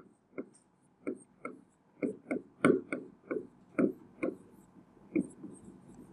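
Pen tip tapping on the screen of an interactive display board during writing: a quick, irregular series of light clicks, about two a second.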